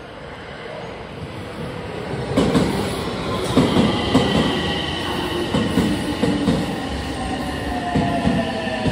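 JR West 225 series 5100-subseries electric train pulling into the station: wheels knocking over rail joints and a rising rumble from about two seconds in, with a whine that slowly falls in pitch as the train slows.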